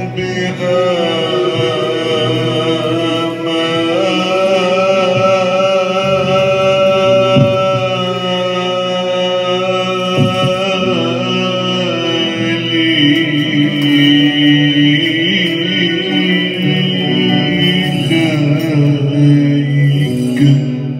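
A man singing long, held, slowly wavering notes in Arabic-style melody, accompanied by an oud.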